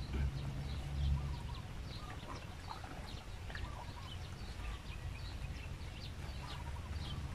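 Birds calling in many short, scattered chirps over a low rumble that is heaviest in the first second or so.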